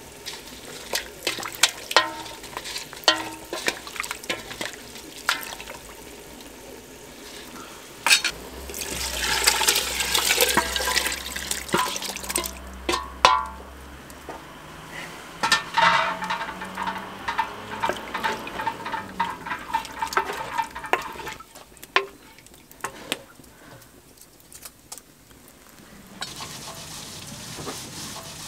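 Cooking sounds from a pot: a wooden spoon knocking and stirring in a metal pot of meat and water, with sharp clicks. About eight seconds in comes a few seconds of liquid pouring and splashing, then a second, longer pour a few seconds later.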